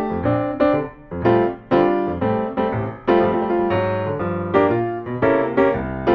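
Background piano music: a melody of separately struck notes, each one fading before the next.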